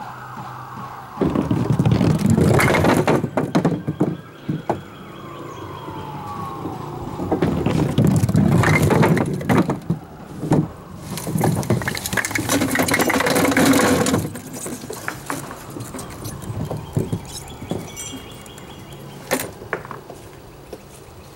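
A small composite bowling ball knocks down 10-inch wooden pins in a clatter of knocks. A string pinsetter then runs for a few seconds, hauling the pins back up on their cords and setting them down again.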